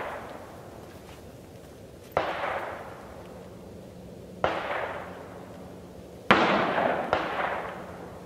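Three rifle shots about two seconds apart, each ringing out in a long fading echo; the third is the loudest and is followed about a second later by a fainter crack.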